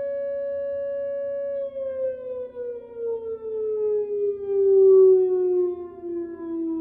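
Whelen WPS 2909 electronic outdoor warning siren ending its steady alert tone: it holds one pitch, then about one and a half seconds in starts gliding steadily down in pitch, its loudness swelling and fading, as the alert cycle winds down.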